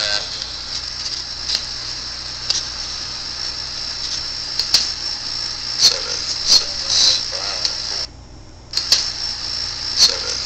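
EVP recording being played back through a small recorder speaker: a steady hiss with scattered clicks and a few faint, indistinct murmurs. The hiss cuts out for under a second about eight seconds in.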